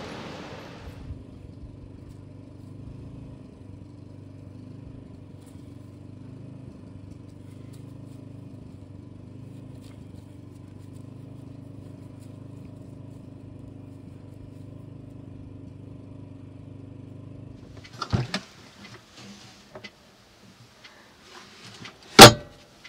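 A steady low hum with several held pitches for most of the time. Near the end it gives way to a few light knocks and one loud clunk as the lid of a portable fridge is handled.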